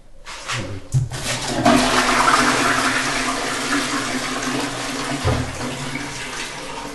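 Toilet flushed with the push button on its cistern lid: a few clicks, then water rushing from the tank into the bowl, loudest at first and slowly easing off.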